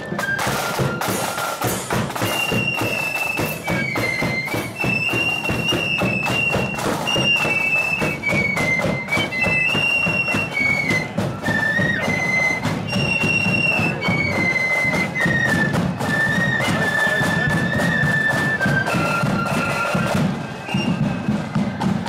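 Marching flute band playing a tune: flutes in unison carry the melody over a steady beat from a bass drum and snare drums.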